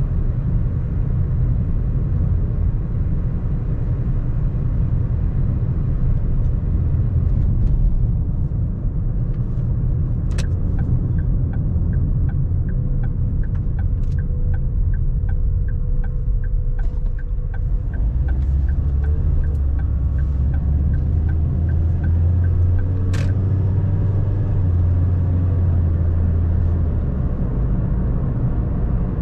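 Car in motion with a steady low road and engine rumble. About ten seconds in, a sharp click is followed by an even ticking of the turn indicator, two to three ticks a second, for about twelve seconds, ending with another click as it cancels. A louder low engine hum comes in during the second half.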